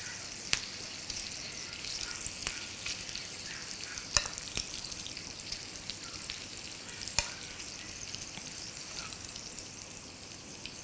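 Hot tempering oil with mustard seeds, sesame seeds and green chilies sizzling as it is spooned over khandvi rolls: a steady high hiss with a few sharp clicks.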